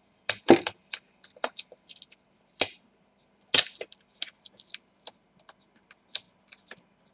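Irregular sharp plastic clicks and taps from hands working on a laptop's display assembly and its cable, with a few louder knocks among them.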